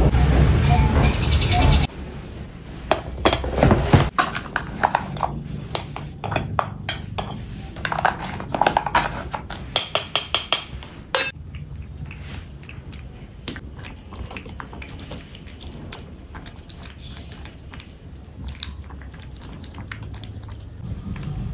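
A steady rushing sound cuts off about two seconds in. Then comes a run of clicks and clinks as wet cat food is spooned with a wooden spoon into stainless steel pet bowls. It is followed by quieter small taps of a cat eating from the bowl.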